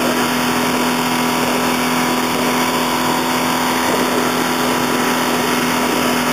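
Small outboard motor on an inflatable dinghy running steadily at speed while towing a tube, a constant hum under a rush of wind and water from the wake.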